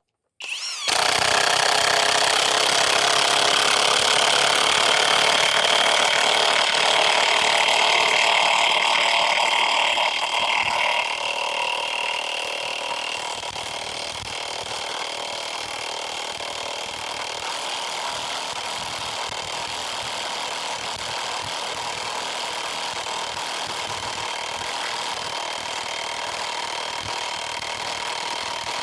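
Flex Gen 1 high-torque impact wrench hammering continuously, driving a 5/8 by 10-inch lag bolt into wood. It starts about half a second in, is loudest for the first ten seconds or so, then settles a little lower and steady as the lag goes deeper.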